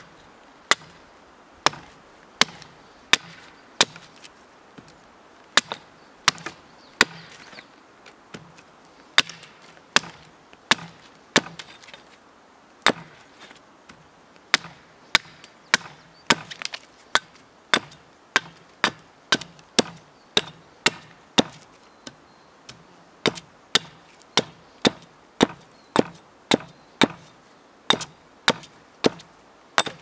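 Hatchet chopping a point onto the end of a wooden stake held against a log: a steady run of sharp, separate blows, about one to two a second, with chips splitting off the wood.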